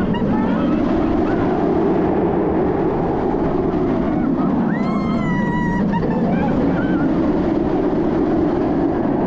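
Montu, a Bolliger & Mabillard inverted roller coaster, running at speed: a steady rush of wind on a ride-mounted action camera over the train's rumble on the steel track. About five seconds in, a rider screams for about a second.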